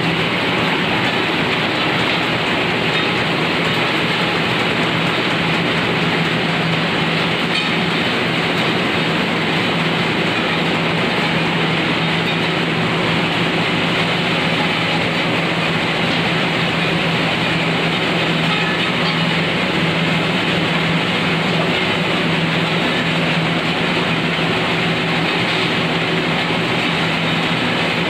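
Turmeric grinder machine running steadily: a loud, even mechanical drone with a constant low hum.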